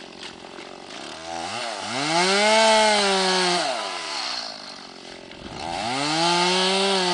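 Dead birch trunk creaking as it is rocked back and forth by hand. There are two long creaks, each rising in pitch, holding, then sliding down.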